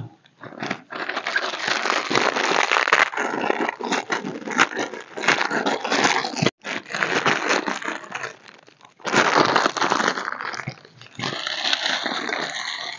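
Rustling and crackling of a plastic ground tarp and bags as camping gear is handled, in uneven spells with short breaks.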